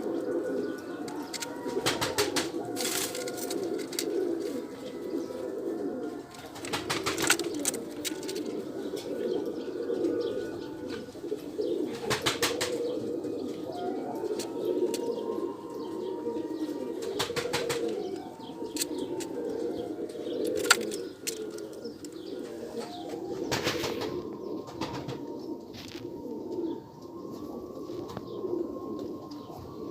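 Domestic pigeons cooing continuously, several birds at once, with a few short bursts of wing flapping.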